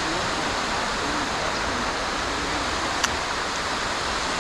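Steady rushing water, an even roar that does not change, with one sharp click about three seconds in.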